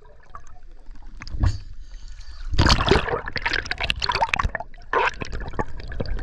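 Water gurgling and sloshing around a camera moving underwater in a river, muffled at first, then louder, irregular splashing from about two and a half seconds in.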